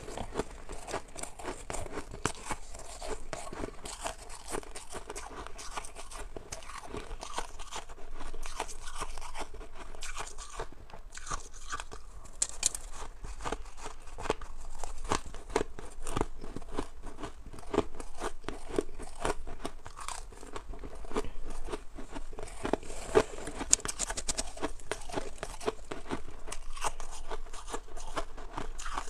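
A person crunching and chewing mouthfuls of white frost ice in a dense, rapid run of crisp crunches.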